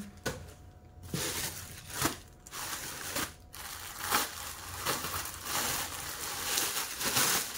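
Plastic packaging crinkling and rustling as it is handled and unwrapped, with irregular sharp crackles.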